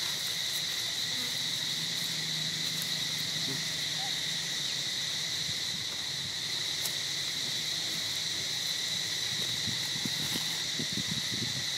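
Steady, high-pitched drone of insects in the forest, unbroken throughout, with a few faint low rustles near the end.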